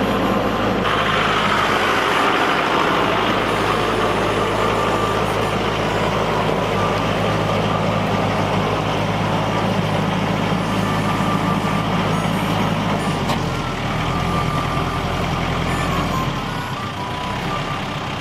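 LS XR4040 compact tractor's diesel engine running steadily as the tractor moves its loaded front-loader bucket, with a thin beeping tone coming and going; the engine note drops about thirteen seconds in.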